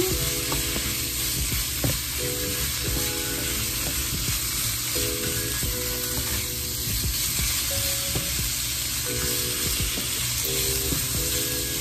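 Chicken, onions and bell peppers sizzling in oil in a nonstick frying pan as a steady frying hiss. A wooden spatula stirs through them, adding soft scraping and shuffling.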